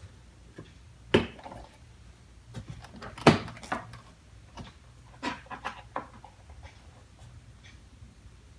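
Scattered knocks and clicks of a plastic toolbox and the small tools in it being handled: a knock about a second in, a louder one a little after three seconds, and a run of lighter clicks around five to six seconds in.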